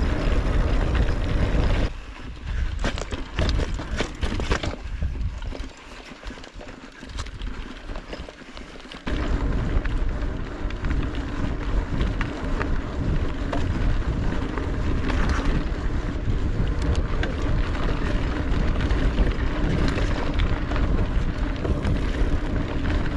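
Mountain bike riding on a dirt trail: wind rumbling on the microphone with tyre and trail noise and a few rattles. It quietens for several seconds about two seconds in, then comes back loud and steady about nine seconds in.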